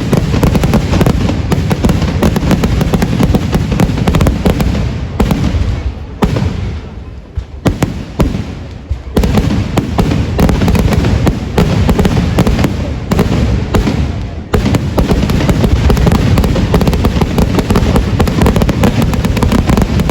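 Fireworks display: a dense, rapid barrage of firecracker bangs, easing off into a brief lull about six seconds in and building back to a continuous barrage about nine seconds in.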